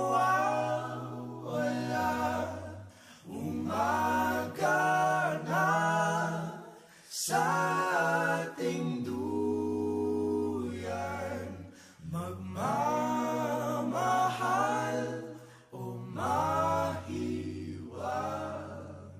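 A cappella song: several voices singing in close harmony over a sung bass line, in phrases broken by short pauses.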